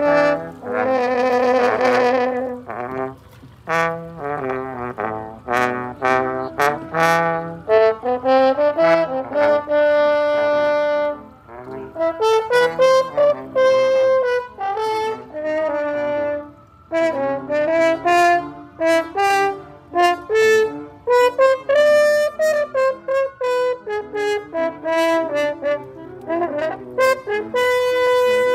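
French horns playing a lively tune together, mostly short detached notes with a few longer held ones, several horns sounding at once in harmony.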